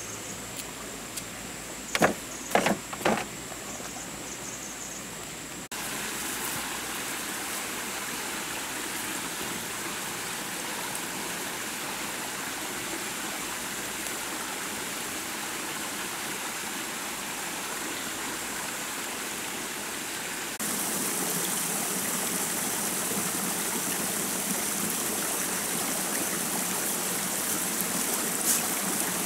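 A forest stream rushing steadily, turning louder about two-thirds of the way through. Near the start, before the water comes in, a quick run of sharp clicks over a steady high whine.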